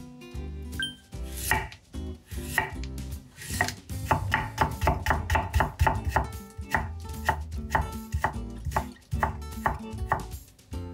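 Kitchen knife cutting a carrot into thin matchsticks on a wooden end-grain cutting board. A few spaced strokes come first, then a steady run of chops, about three a second, each blade hitting the wood.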